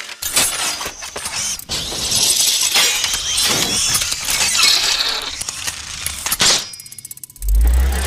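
Sound-design effects for Doctor Octopus's mechanical tentacle arms: dense metallic clinking, ratcheting and whooshing, with a heavy low boom near the end.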